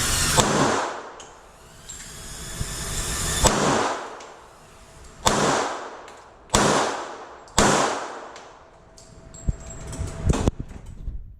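A string of gunshots, about five loud ones spaced one to two seconds apart, each followed by a ringing echo, with a few fainter bangs near the end.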